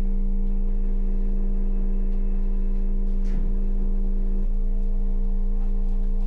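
Dark ambient drone of several sustained low tones, steady and unchanging, like a resonant singing-bowl or gong hum. A brief soft noise cuts through it about three seconds in.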